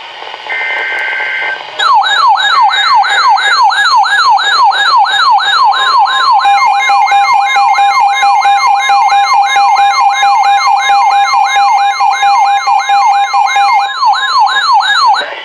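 Weather radio alert: a short burst of steady two-pitch data tones, then a loud siren-like alarm tone warbling up and down about two and a half times a second. It stops abruptly just before the end. The alarm signals an incoming severe thunderstorm warning.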